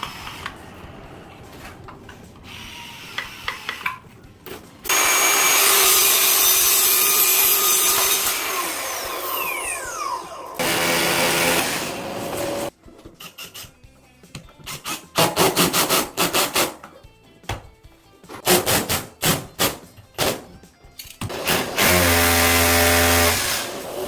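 Power tool running loud for several seconds, its pitch falling as it winds down, followed by a string of sharp knocks and clicks and brief pitched machine hums.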